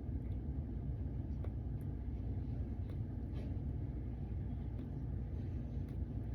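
A steady low rumble with a faint hum and a few soft clicks.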